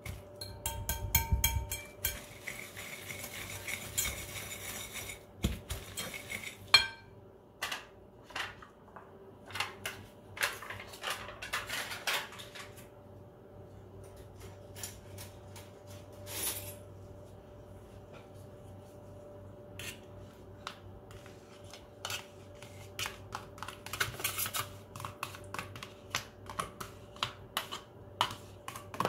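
Metal wire whisk beating a thick batter in a glass bowl, its wires clicking and scraping against the glass. The strokes come fast and dense for the first several seconds, then turn looser and more spaced out.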